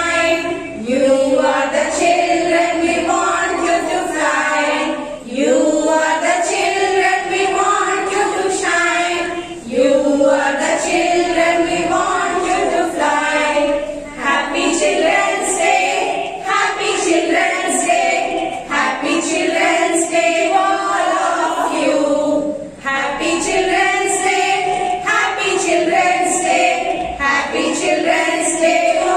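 A group of women singing a song together in unison, in sung phrases of a few seconds each with brief pauses for breath between them.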